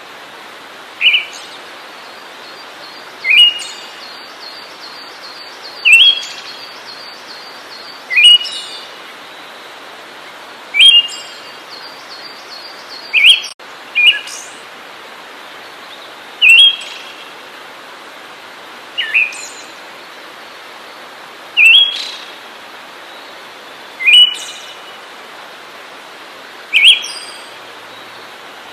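A songbird giving the same short, sharp call over and over, about every two and a half seconds, with a faint fast ticking trill behind some of the calls and a steady hiss underneath.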